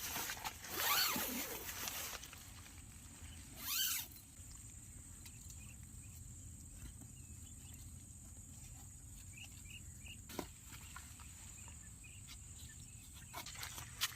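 An animal calling twice over a quiet outdoor background: a long call sliding in pitch, then a shorter rising call a few seconds later.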